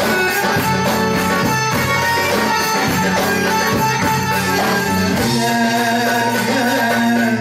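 Live Arabic band music with a steady percussive beat under a held, pitched melody; the melody shifts to a new line a little past halfway through.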